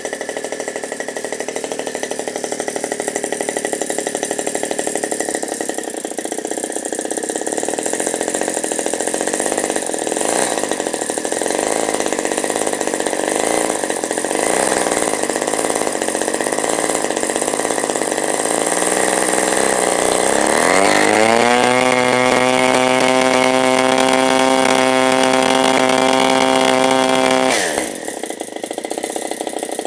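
A 17cc two-stroke petrol model-aeroplane engine running on a test stand with its propeller turning. It runs at a lower speed for about twenty seconds, then revs up into a high, steady note, holds it for about six seconds, and drops abruptly back to a lower speed near the end.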